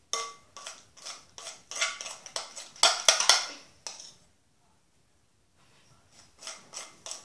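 A spoon clinking and scraping against a glass mixing bowl as glue and starch solution are stirred into slime that is starting to come together. The knocks come in quick runs, some with a brief ring, stop for about a second and a half past the middle, then start again.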